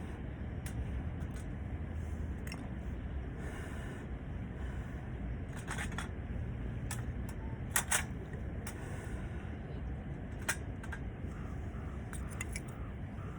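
Wood campfire crackling: scattered sharp pops, the loudest a quick pair about eight seconds in, over a steady low rumble.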